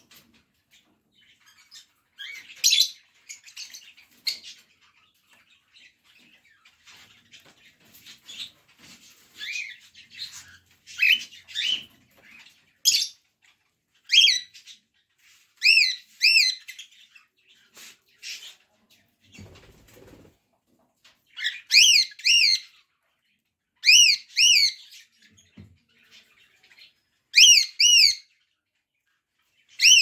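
Cockatiel chirping: short high calls throughout, turning into repeated arched chirps, mostly in pairs, in the second half. A dull low bump partway through.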